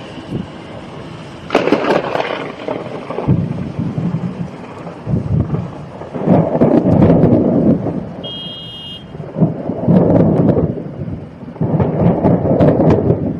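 Thunder during a storm: four loud peals that crack and rumble a few seconds apart, with rain falling between them.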